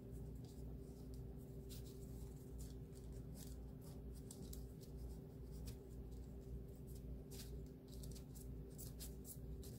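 Soft, irregular rustling and small crinkles of wax paper under fingers pressing fondant, over a steady low hum.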